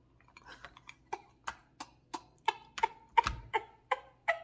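Rapid, regular wet mouth smacks, about three a second, while eating crab in butter sauce, with a soft low thump about three seconds in.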